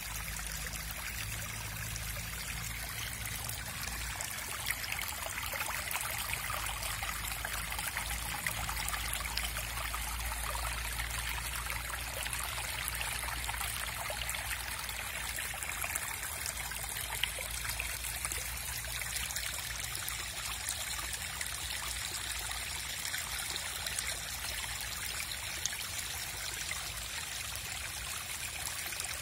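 Rainwater running and trickling steadily after heavy rain, an even, unbroken splashing flow.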